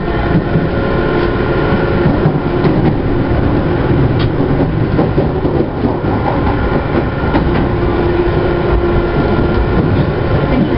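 Tokyu 5050 series electric commuter train running: steady rumble of wheels on rail with the hum of its VVVF inverter and traction motors, held at a steady pitch.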